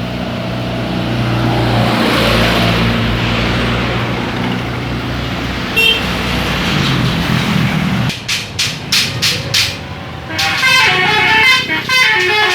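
A bus engine runs for about eight seconds. Then comes a run of short sharp toots, and from about ten seconds in a telolet bus horn plays a tune of several stepping tones.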